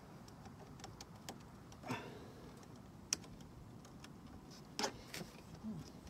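Faint, scattered clicks and taps, the sharpest about halfway through, from a 3D-printed nylon latch bracket being held against a wooden gate post while its screw holes are marked with a pen.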